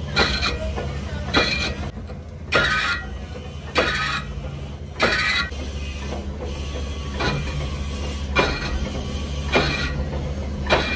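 Metal lathe machining a tractor rear axle housing: a steady low motor hum, with a sharp scraping knock about every second and a quarter as the turning housing meets the cutting tool.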